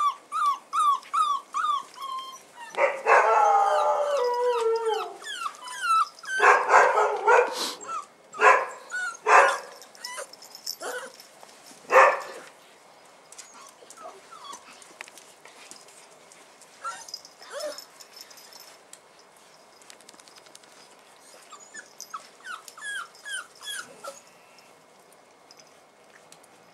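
Bull terrier puppies whimpering and yelping: runs of short, high-pitched whines about four a second at the start, a longer falling whine a few seconds in, and several louder sharp yelps before it settles into quieter scattered whimpers.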